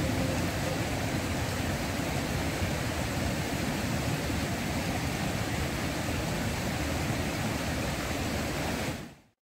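A shallow stream running over stones: a steady rush of flowing water that fades out near the end.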